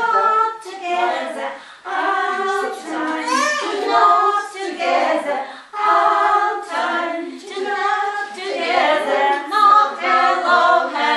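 A group of women singing a children's hello song together, the melody sung without instrumental accompaniment.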